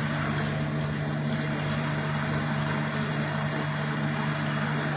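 Sodick 408 sinker EDM machine running, its power-supply cabinet giving a steady low electrical hum over an even whir of cooling fans, with no change in pitch or level.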